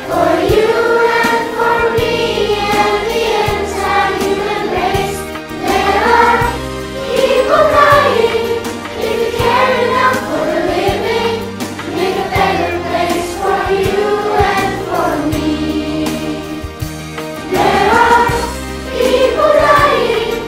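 A virtual choir of children and adults singing together in unison over an instrumental backing track with a steady bass line.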